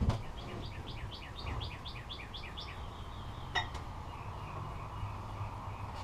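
A songbird sings a quick trill of about ten downward-sliding notes, with a sharp metallic clink a little past halfway through, over a low steady rumble.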